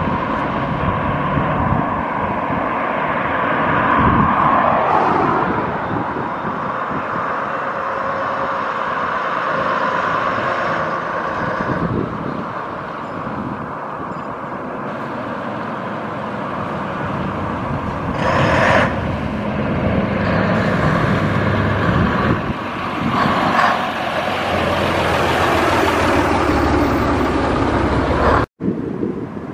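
Road traffic passing along a street, including the diesel engine of a vintage front-engined half-cab double-decker bus as it drives up. A brief hiss comes about two-thirds of the way through.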